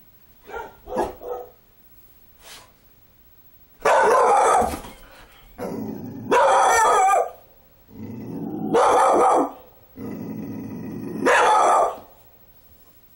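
Dog barking four times, about two and a half seconds apart, with growling between the barks: the defensive barking and growling of a dog frightened by a doll.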